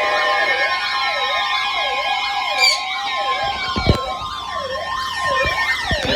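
Several emergency alert tones sounding at once. Steady alarm tones overlap a siren-like tone that sweeps up and down over and over, along with slow falling glides. A few dull thumps come in the second half.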